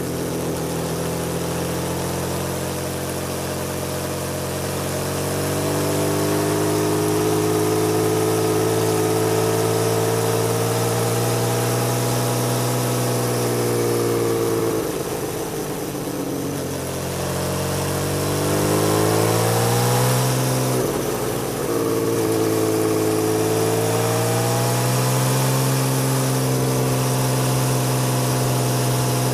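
Honda CBX1000's air-cooled inline six through a modified Marving aftermarket exhaust, running loud under way on a climbing road. The engine note rises and falls with the throttle and breaks off briefly twice, about halfway through and again a few seconds later.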